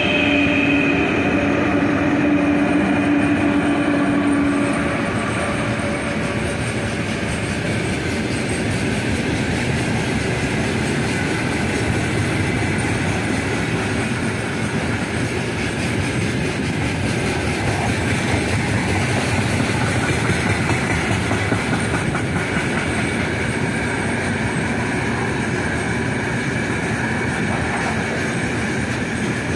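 Heavy freight train of gondola wagons rolling past at speed: a steady rumble of wheels on rail with clickety-clack over the joints. It is louder, with a steady whine, for the first five seconds or so as the 3ES5K electric locomotive's rear sections go by.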